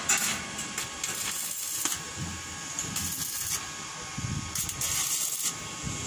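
Hand-tool work on a corrugated galvanized iron roof sheet: scattered clicks and short rasping noises over a steady hiss, with two longer rasps in the second half.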